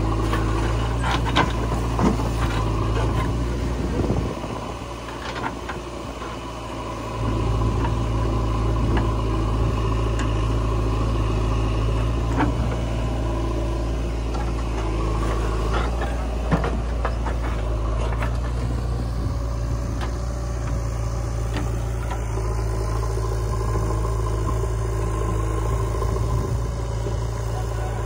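Diesel engines of a JCB 3DX backhoe loader and a Mahindra tractor running steadily while the backhoe bucket tips soil into a steel tractor trolley, with scattered knocks of falling clods. The low engine hum drops away for about three seconds some four seconds in, then returns.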